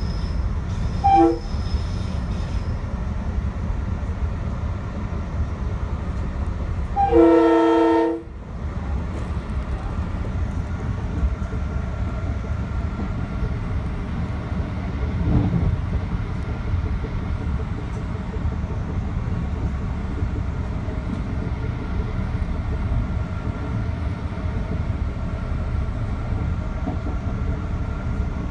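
Metro-North Hudson Line commuter train running, a steady low rumble of wheels on the track. Its horn gives a short toot about a second in, then a louder blast of about a second some seven seconds in.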